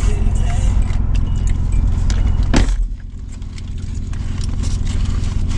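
Steady low rumble inside a car cabin, with scattered light clicks and rustles. One sharp knock comes about two and a half seconds in, after which the rumble briefly drops.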